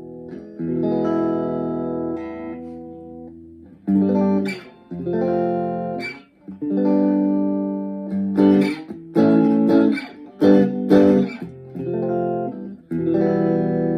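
Chapman ML1 Traditional Strat-style electric guitar on its neck pickup, played dry through a Blackstar HT1-R amp with no reverb. It opens on a held chord, then moves through a series of picked chords and notes, and ends on a ringing chord.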